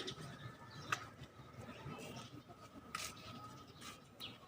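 Faint bird chirps, scattered and brief, over a steady high hum, with two sharp clicks about a second in and near three seconds in.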